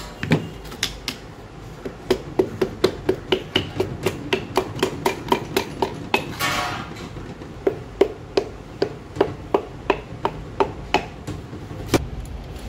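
Piston being tapped down through a ring compressor into a Hyundai Verna engine's cylinder sleeve with a tool handle: runs of quick light knocks, about three or four a second, broken about halfway by a short scraping rush.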